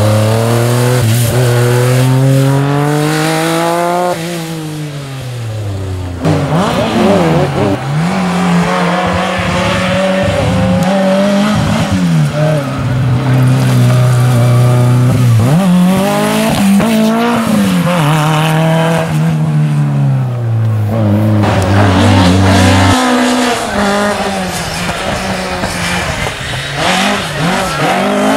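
Historic rally cars passing one after another: each engine revs up and drops back repeatedly through gear changes and the corner. A Ford RS200 takes the middle stretch and a Ford Escort Mk1 comes in near the end.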